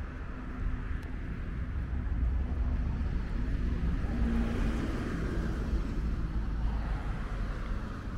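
A car passing on a road: tyre and engine noise swells to a peak about halfway through, then fades, over a steady low outdoor rumble.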